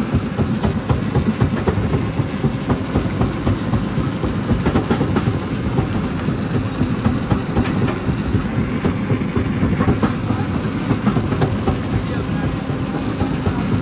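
Jaw crusher running and crushing rock: a steady rumble packed with rapid knocks and cracks.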